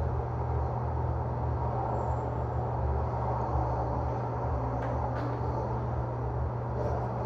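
Steady low rumble of outdoor background noise, with two faint clicks about five seconds in.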